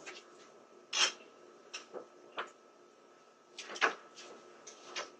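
A few irregular sharp knocks and clatters, the loudest about a second in and a pair just before four seconds in, over a faint steady hum.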